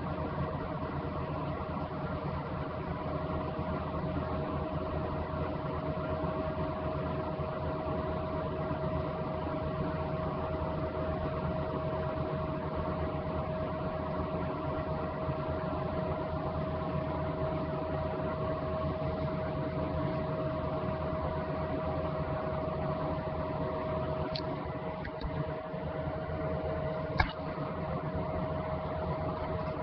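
Steady, unchanging hum with one strong mid-pitched tone over a low noise bed, of the machine or electrical kind. There are a couple of faint clicks, then one sharp click near the end.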